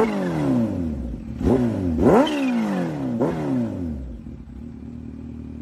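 Sport motorcycle engine revved in four quick blips while stationary, the revs falling back after each, then settling to a steady idle near the end.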